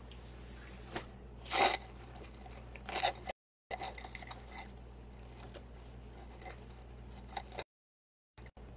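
Two short snips about a second and a half apart as pipe-cleaner ends are trimmed, with light handling clicks in between. The audio cuts out completely twice for a moment.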